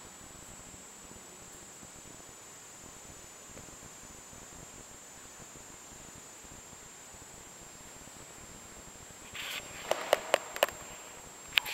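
Quiet, steady church-interior room tone with a faint, thin high-pitched whine. About nine seconds in, a run of sharp clicks and knocks starts, several close together and then one more near the end, ringing briefly in the hall.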